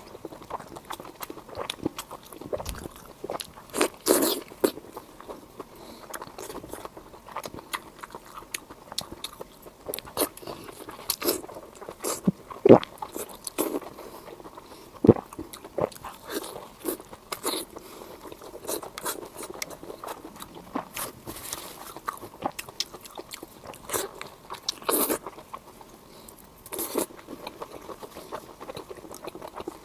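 Close-up eating: a person biting and chewing crunchy food, with many small crackles and a handful of louder crunches spread through.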